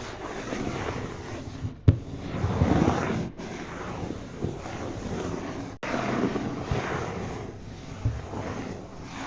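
Wind buffeting the microphone: a steady rough rushing, broken by a few sudden brief cut-outs.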